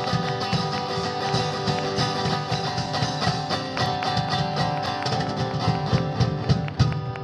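Guitar strumming a chord in a steady rhythm, an instrumental passage of a live song with no singing.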